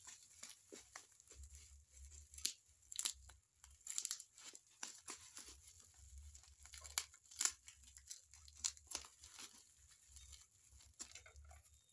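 Packing tape and plastic wrapping being pulled and torn off a parcel by hand: a string of irregular short rips and plastic crinkling.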